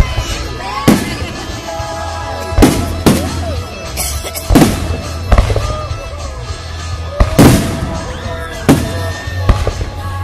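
Fireworks shells bursting overhead: about nine sharp bangs spread irregularly over ten seconds, some in quick pairs. Music plays underneath the bangs.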